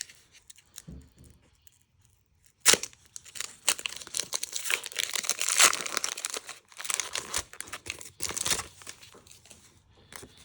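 Foil booster-pack wrappers being torn open and crinkled: a sharp rip a little way in, followed by a run of crackling and rustling as the packs are handled.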